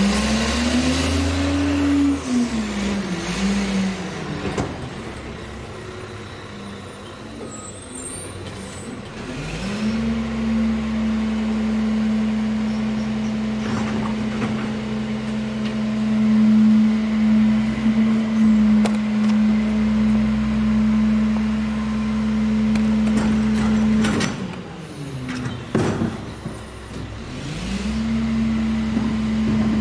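Diesel engine of a CCC-cab Wittke manual side loader garbage truck. Its revs rise and fall over the first few seconds, then it revs up and holds a steady high speed for about fourteen seconds. It drops back with a few knocks, and near the end revs up again to the same steady speed.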